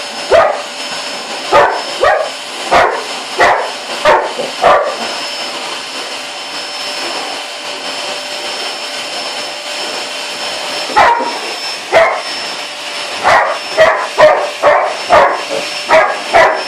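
A dog barking repeatedly at a running vacuum cleaner, whose steady whine carries on throughout. The barking stops for about six seconds in the middle, then starts again and grows quicker, about two barks a second near the end.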